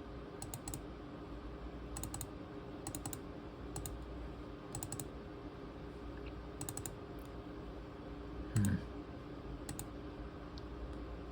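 Scattered clicks from a ThinkPad T23 laptop's keys and buttons, a dozen or so at irregular gaps, over a steady low hum. A dull thump about eight and a half seconds in is the loudest sound.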